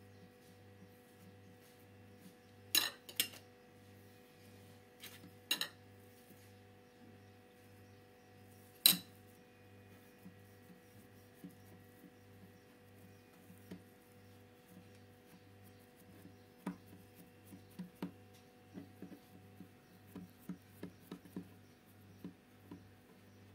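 A metal spoon clinks sharply about five times in the first nine seconds, loudest near the end of that stretch, as it works mashed-potato filling. After that come small soft taps as fingers press the filling flat on the pastry sheet, over a faint steady hum.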